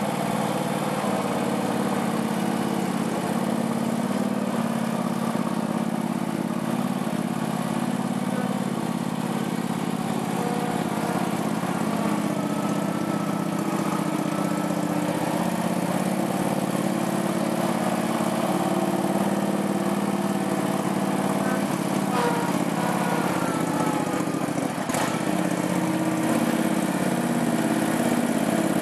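Small engine of a homemade articulated dump truck running steadily, with a couple of faint clicks in the last third.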